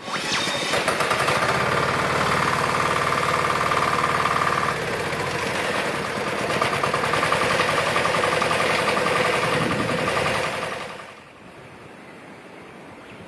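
Mini excavator engine starting up, running steadily for about eleven seconds with a slight dip in level partway through, then shutting off.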